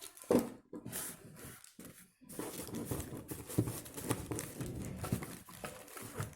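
Plastic packaging crinkling and rustling in irregular spurts as vacuum cleaner parts are unwrapped by hand, with a sharp crackle about half a second in.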